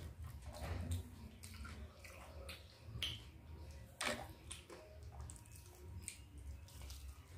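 Close-up eating sounds: wet chewing and irregular mouth clicks, with fingers squishing khichuri and a fried egg on a plate.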